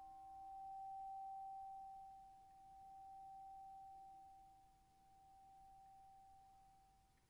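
A single struck bell tone ringing out and slowly dying away as the closing note of a brass band piece, its loudness gently swelling and fading about every two seconds.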